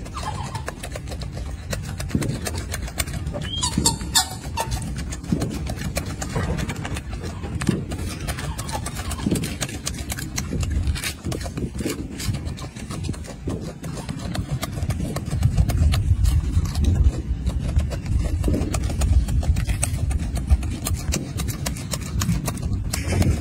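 Golden snub-nosed monkey eating a peeled orange close up: wet chewing and lip-smacking clicks over a steady low rumble.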